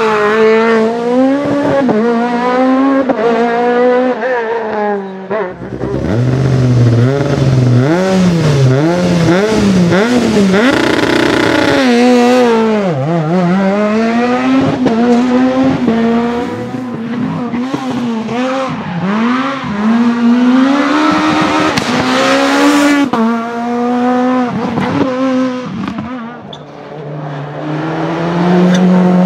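Rally cars, among them a Peugeot 207 S2000, a Renault Clio S1600 and a Ford Focus WRC, driven hard past the microphone one after another. Their engines rev high, the pitch climbing and dropping repeatedly through gear changes and lifts, and the sound breaks sharply where one car gives way to the next.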